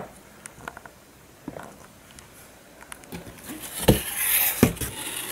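A few faint scattered ticks, then about three and a half seconds in, rustling and crinkling of packaging as hands rummage in a cardboard shipping box, with two dull thumps.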